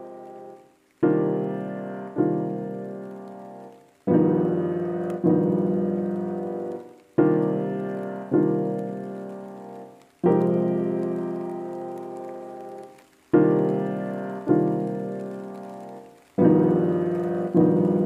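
Slow background piano music: soft chords struck one after another, often in pairs about a second apart, each ringing on and fading before the next.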